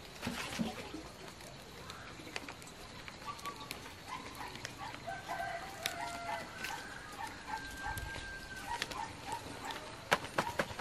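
Chickens calling in the background: a rooster crowing and hens clucking in an evenly spaced run. Large wrapping leaves crinkle and rustle as they are folded by hand, with a sharp crackle near the end.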